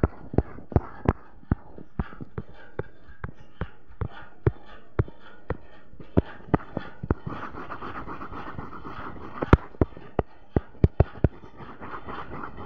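Fingertip tapping on a phone touchscreen: a string of sharp, irregular clicks about two to three a second over a steady background hiss, pausing for a couple of seconds midway and resuming in a quick cluster near the end.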